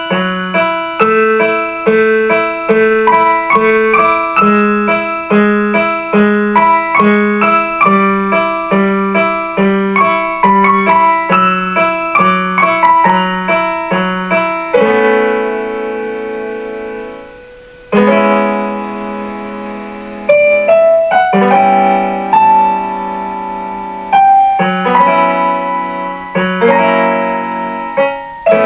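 Piano music: a steady pattern of notes over a repeated bass note about twice a second, then, about halfway through, slower struck chords left to ring and fade before the next ones.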